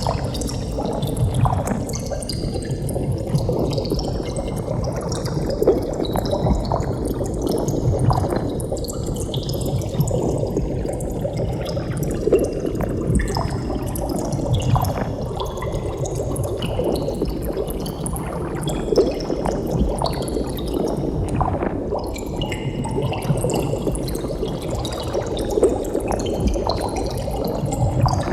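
Continuous underwater bubbling: a dense stream of bubbles rising and popping in water, with many small pops over a steady wash.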